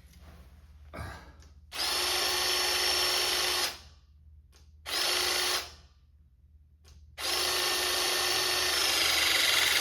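The electric motor and hydraulic pump of a battery-powered 12-ton lug crimper run in three bursts: about two seconds, then a brief half-second burst, then a longer run from about seven seconds in. The steady whine of the last run changes pitch near the end.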